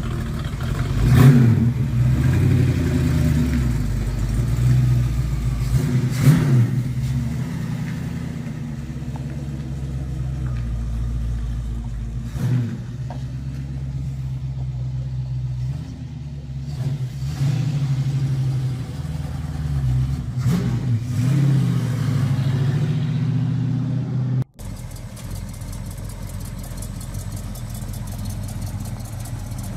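Hot rod roadster's V8 engine running with a deep rumble, blipped in several short revs while the car pulls out and drives off. About 25 s in there is a sudden cut to the engine idling steadily.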